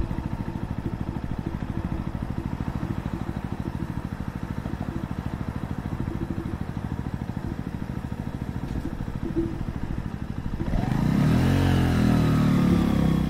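2023 Mutt Razorback 125cc's air-cooled single-cylinder four-stroke engine running at a steady idle. About eleven seconds in it is revved once, rising in pitch and falling back.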